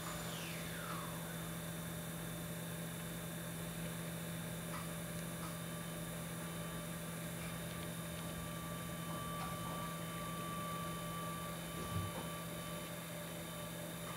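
Electric pottery wheel motor running with a steady low hum, with a short falling whine in the first second. A single soft thump comes about twelve seconds in.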